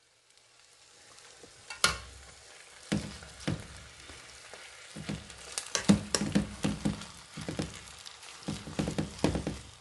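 Kimchi and chili-tuna fried rice sizzling in a nonstick frying pan while a metal spoon stirs it, with repeated sharp clinks and scrapes of the spoon against the pan.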